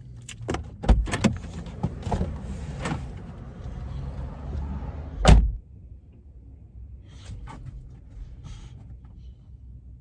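Jeep door handling: several clicks and knocks, then the door shuts with one loud thud about five seconds in. The Jeep's engine idles underneath as a low steady hum.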